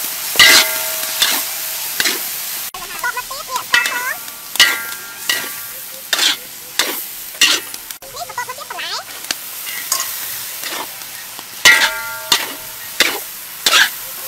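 A metal spatula scraping and knocking against a large metal wok during stir-frying, over a steady sizzle of food frying. The harder knocks leave the wok ringing briefly.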